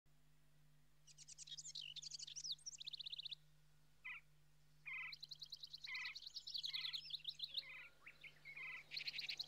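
Several birds singing, with rapid high trills alternating with repeated short chirps and a brief lull partway through, over a faint steady low hum.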